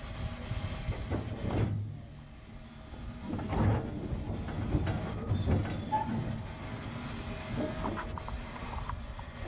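Narrow-gauge steam train running, heard from right behind the locomotive's tender: a steady low rumble with irregular clanks and knocks, dipping briefly quieter about two seconds in.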